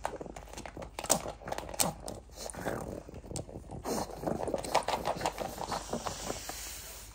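A pug biting, tugging and pawing at a silicone food mat on a wooden floor: a busy, irregular run of slaps, scrapes and claw clicks.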